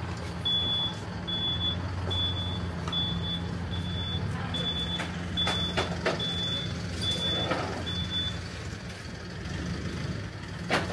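Vehicle reversing alarm sounding a series of short, evenly spaced high beeps, about ten of them at a little more than one a second, stopping about eight seconds in, over the steady low hum of an idling engine. A sharp knock comes near the end.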